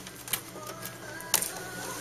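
HP inkjet all-in-one printer mechanism running: a faint motor whine that steps in pitch, with two clicks, the second one sharp and loud about a second and a half in.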